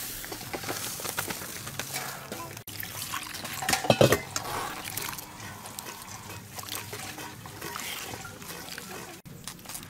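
A dry ingredient pouring with a hiss from a bag onto a heap of flour in a stainless steel bowl, then a hand mixing and squeezing wet flour in the bowl, with wet rubbing and squishing. A short louder sound comes about four seconds in.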